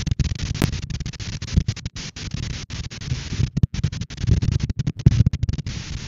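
Strong wind buffeting the outdoor camera microphone: gusty low surges over a steady hiss, broken by many brief cut-outs.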